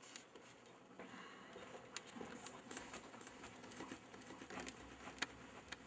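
Faint, scattered clicks and light rustling, like small objects being handled, with the sharpest clicks about two seconds in and near the end.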